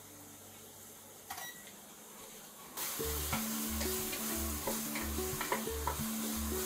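Minced onion sizzling in olive oil in a stainless steel pot while a wooden spatula stirs and scrapes it with small clicks: sautéing on medium heat until translucent. This starts about three seconds in, under background music with a steady beat. Before that, a short beep about a second in as the microwave's buttons are pressed.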